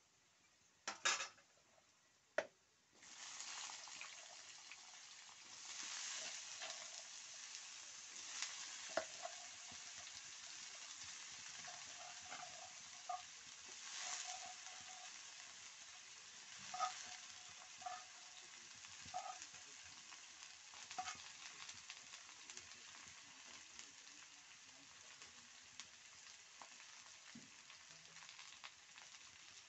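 Two sharp knocks, then about three seconds in a strong sizzle starts suddenly as cut potato sticks hit hot oil in an iron kadhai. The frying goes on with occasional sharp clicks and slowly fades.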